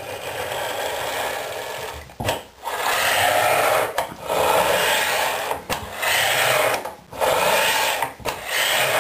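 Linear ball bearings rolling along round steel guide shafts as a home-built CNC's aluminium Z-axis plate is pushed back and forth by hand. The gritty rolling noise comes in about six strokes, each a second or two long, with a brief pause at each change of direction.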